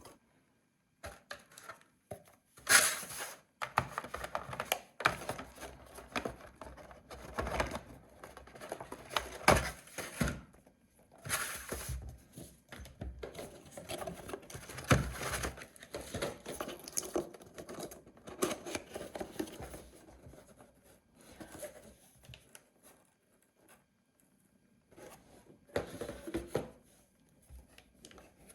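Irregular rustling, scraping and light knocks from things being handled by hand, with short pauses between them.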